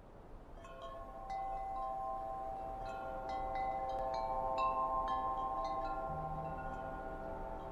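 Background music opening with wind-chime-like tinkling over held tones, fading in over the first second or so. A low note comes in near the end.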